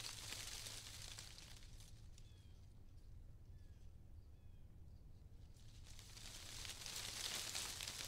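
Wind gusting through autumn leaves: a soft rustling hiss that swells at the start and again, louder, near the end, over a low steady rumble. A few faint short bird chirps sound in the lull between the gusts.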